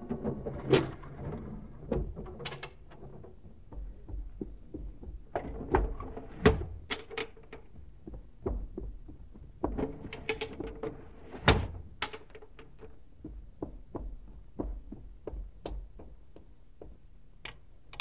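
Radio-drama sound effects of windows being shut and locked: an irregular run of knocks, clicks and thumps, loudest about a second in, about six and a half seconds in and about eleven and a half seconds in.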